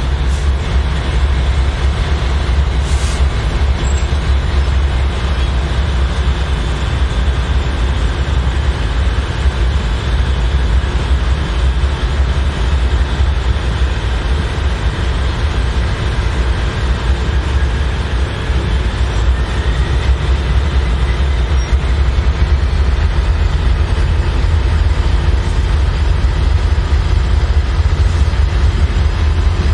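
Diesel locomotives, a Norfolk Southern unit followed by a BNSF unit, rolling slowly past with a steady deep engine rumble and faint thin high tones from the wheels on the rails.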